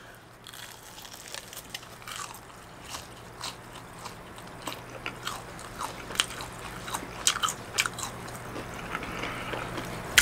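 Close-up biting and chewing of a crispy breaded fried chicken drumstick: irregular crisp crunches of the crust, over a faint steady hum.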